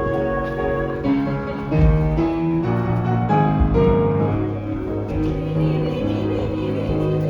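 Instrumental music led by piano, with held notes and chords that change every second or so.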